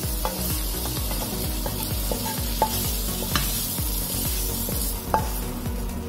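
A spatula scraping sautéed young jackfruit out of a hot frying pan into a glass bowl, with a few sharp clacks against the pan, over a steady sizzling hiss.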